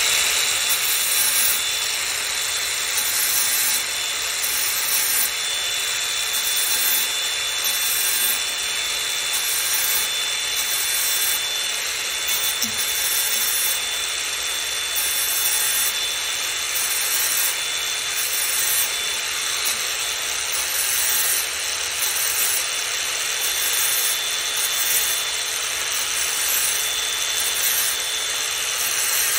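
Angle grinder spinning up with a rising whine, then running steadily with its wheel grinding against the steel teeth of a hedge trimmer blade to sharpen them.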